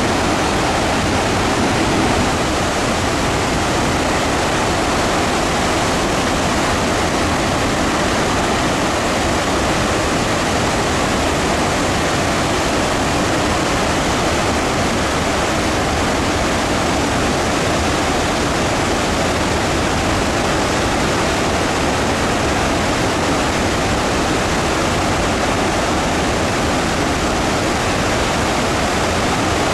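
Victoria Falls, the Zambezi River pouring over the gorge at heavy flow: a loud, steady, unbroken rush of water.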